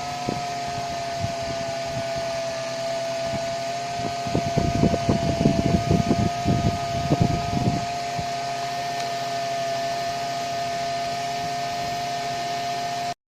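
Small DC motor driving the fan of a homemade plastic-box air cooler, running with a steady high whine and a hiss of moving air. Irregular low rumbling from about four to eight seconds in, then the sound cuts off suddenly near the end.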